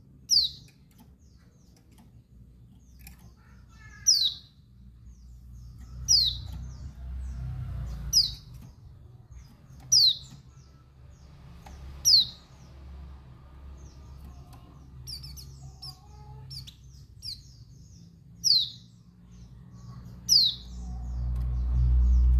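Female pleci dakun Bali (a white-eye) repeating a short, sharp, falling call about every two seconds, with fainter chirps in between. This is the female's call for attracting and provoking males. A low rumble swells midway and again near the end.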